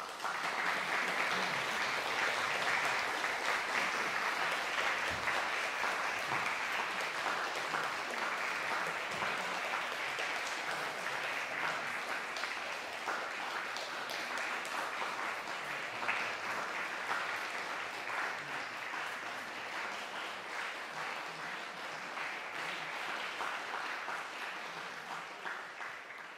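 Audience applauding, breaking out all at once and slowly thinning out near the end.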